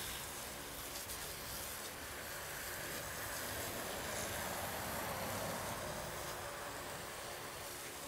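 Garden hose spray nozzle hissing steadily as water sprays onto a freshly sawn sweet gum slab, with a faint steady hum underneath.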